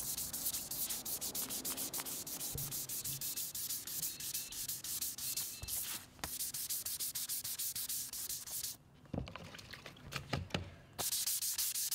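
Sandpaper of about 1,000 grit rubbed by hand in fast back-and-forth strokes along the back of a gloss-finished Stratocaster neck, cutting back the finish. Near the end the strokes stop for about two seconds, with a few light knocks, then start again.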